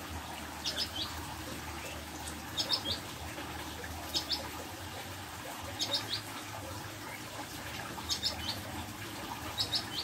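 Ciblek gunung (a prinia) calling: short groups of three quick, high chips, repeated six times about every one and a half to two seconds, over a steady low hiss.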